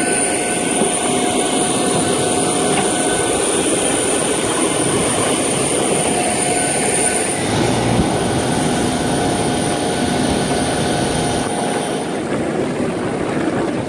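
Steady jet whine of a parked Boeing 737-800, high whining tones over a loud rumbling rush. The high whine drops away near the end.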